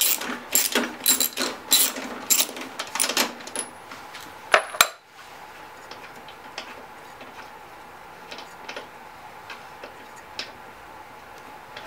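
Socket ratchet clicking in quick, even strokes, about three clicks a second, as it backs the spark plug out of a Honda GCV160 mower engine. Two sharper clicks come just before five seconds in. After that only faint, scattered light clicks are heard.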